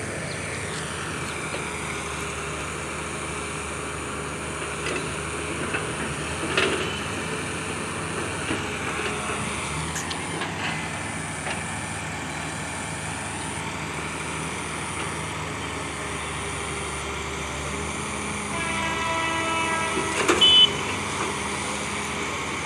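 A steady engine hum, then a diesel locomotive's horn sounding as the train approaches, a held chord of several notes starting about three-quarters of the way in and lasting a couple of seconds.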